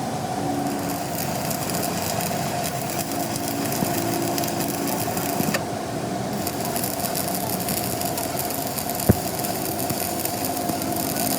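A motor-driven machine running steadily with a constant whine, a hissing, rasping band growing stronger over the last few seconds. There is one sharp knock about nine seconds in.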